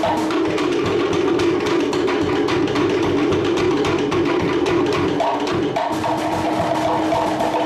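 A group of Cook Islands wooden slit drums (hollowed log drums) struck with sticks in a fast, continuous rhythm, giving clacking, pitched wooden tones.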